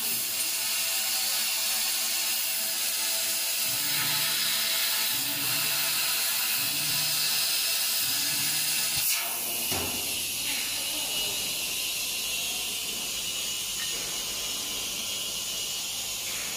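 Laser tube-cutting machine at work: a steady hiss runs throughout, and the rotating chuck's motors hum in about five short moves, one after another, as the tube is turned during the cut. About ten seconds in, after a couple of clicks, the sound changes to a thinner, quieter hiss.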